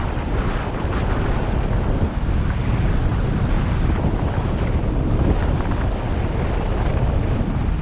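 Steady wind rushing over the microphone of a camera mounted on a hang glider in flight, a loud low buffeting with no break.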